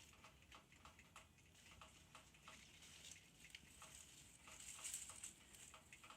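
Near silence: room tone with faint, regular ticking, about three ticks a second, and a soft brief hiss about five seconds in.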